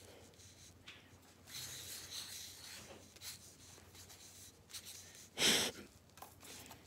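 Felt-tip marker scratching and rubbing on paper, faint and uneven, with one louder short rasp about five and a half seconds in.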